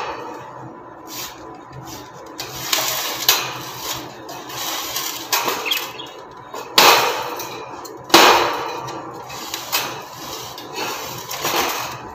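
Metal birdcage being handled at its base: a run of irregular clattering and scraping knocks, the two loudest about seven and eight seconds in.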